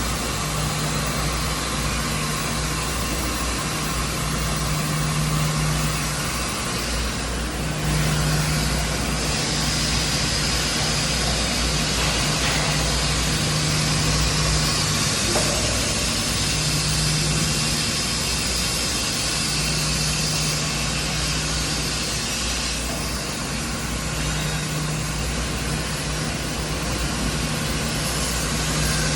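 Steady machinery noise with a broad hiss and a low hum that drops out and returns every few seconds.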